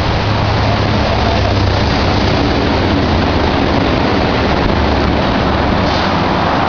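Steady rush of a shallow river running over a rocky riffle, an even, unbroken noise.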